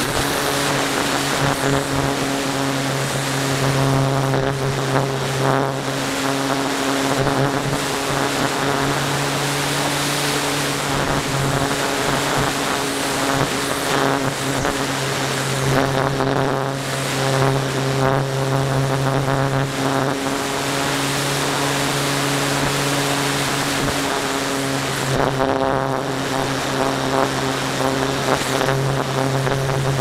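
A model airplane's motor and propeller, heard from a camera on board in flight: a steady buzzing drone that wavers slightly in pitch, with wind rushing over the microphone.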